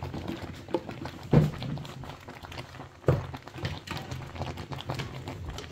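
Button mushrooms being tipped from a bowl into a pot of simmering soup: a soft, irregular tumbling of small knocks, with two louder thunks about a second and a half and three seconds in.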